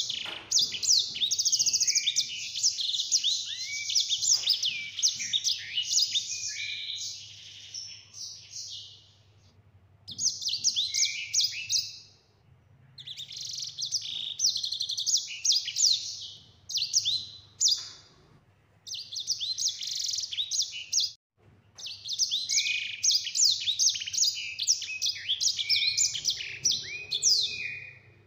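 Sanger, a canary-type finch, singing long, fast warbled songs with rolled trills. The song comes in five bouts broken by short pauses.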